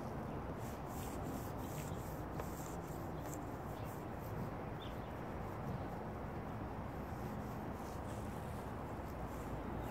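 Faint rubbing of a clay bar gliding back and forth over wet, lubricated car paint, over a steady background hum.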